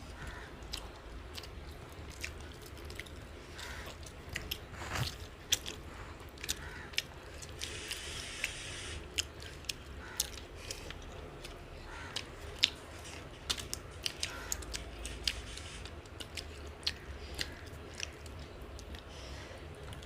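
People chewing and eating fish curry, with many scattered wet mouth clicks and smacks. A brief rustling hiss comes about eight seconds in.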